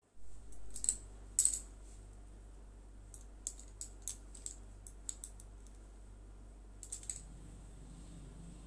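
Bangles on the wrists clinking in short, scattered clicks as the arms move, loudest in the first two seconds, over a steady low electrical hum.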